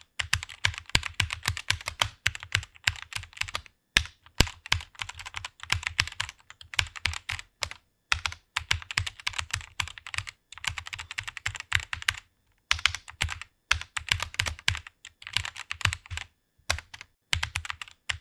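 Typing on a computer keyboard: rapid keystroke clicks, several a second, in runs broken by brief pauses.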